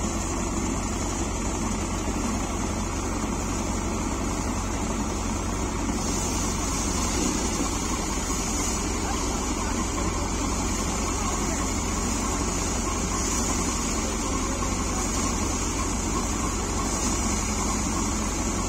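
Tractor-driven paddy thresher running steadily under load as rice bundles are fed into it: a constant machine drone with the tractor engine beneath, and a high hiss that gets louder about six seconds in.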